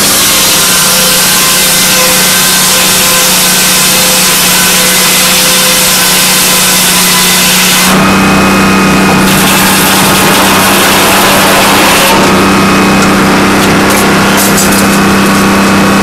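Circular sawmill running steadily, its engine humming under the noise of the blade cutting through a squared timber beam; the cutting noise changes character about halfway through.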